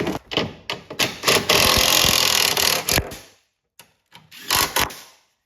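Hand ratchet wrench clicking rapidly as the cowl's mounting bolts are run in, with a few sharp tool clicks first and a shorter second run near the end.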